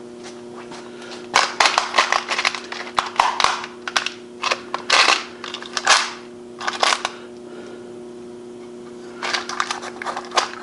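Small metal screws clinking and rattling as a hand rummages through a box of assorted screws, in clusters of sharp clicks with a pause of about two seconds late on. A steady low hum runs underneath.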